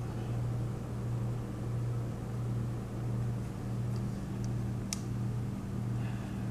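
A steady low hum that wavers slightly, with one faint click about five seconds in.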